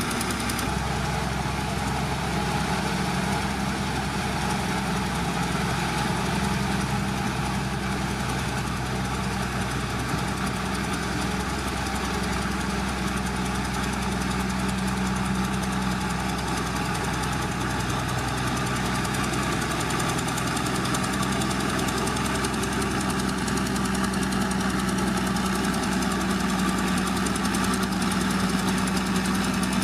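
Heavy diesel engine of earthmoving machinery running steadily at an even speed.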